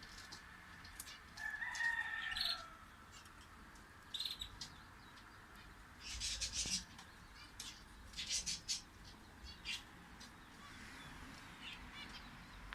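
A rooster crows once about a second and a half in. Small songbirds then chirp in short, high bursts several times.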